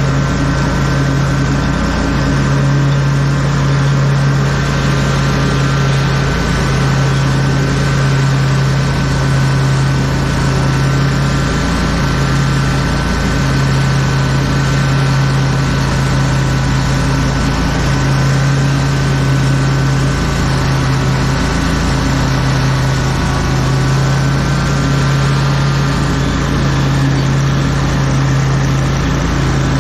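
Lawn mower engine running steadily at constant throttle while mowing, a continuous hum with a faint steady whine above it.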